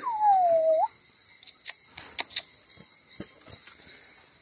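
A single whistle-like call lasting under a second, sliding down in pitch and flicking up at the end, over a steady high drone of jungle insects. A few faint clicks follow.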